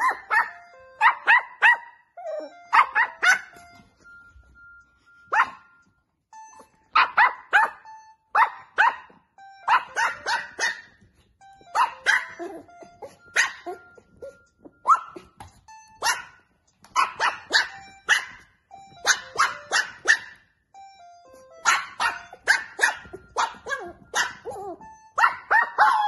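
Lhasa Apso puppy barking at a mobile phone ringtone in repeated quick runs of two to five short, high barks, with the ringtone's melody sounding between them; near the end a call slides down in pitch.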